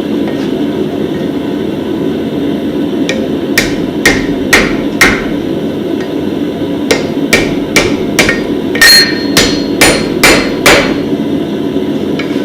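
Blacksmith's hammer striking steel on an anvil while forging tongs. There is a run of about five blows, a pause, then about nine more at roughly two a second, over a steady rushing noise.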